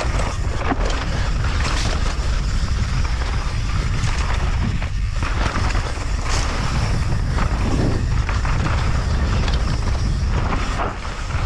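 Heavy wind noise on the microphone as a downhill mountain bike runs fast down a loose dirt trail, with the tyres crunching over dirt and the bike rattling over bumps in short bursts.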